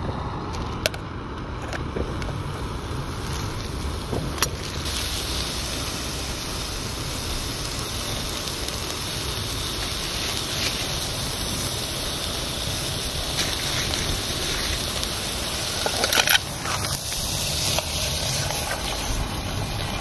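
A gas camping stove burning steadily under a pan, with a few sharp clicks and knocks of cookware near the start, about four seconds in and around sixteen seconds in.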